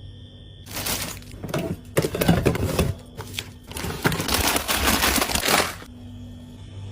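Plastic packaging crinkling and containers clattering as groceries are handled and packed into a fridge, in two spells of a couple of seconds each, over a low steady hum.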